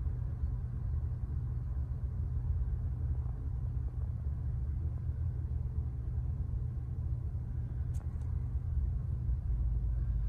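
Steady low rumble, with a couple of faint clicks about eight seconds in.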